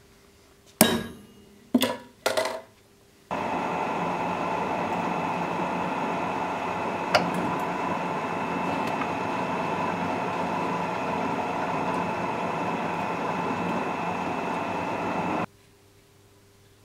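Three hammer blows on a punch held against a small metal plate on an anvil, each ringing briefly. Then a drill press runs steadily for about twelve seconds, drilling the plate clamped in its vise, and stops abruptly.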